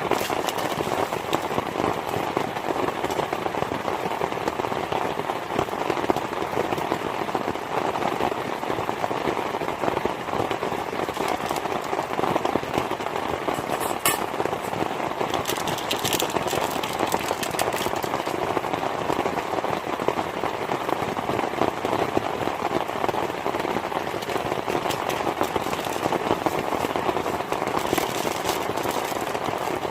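Heavy rain falling steadily and densely on a surface, with short clusters of sharper crackling drop hits near the middle and again near the end.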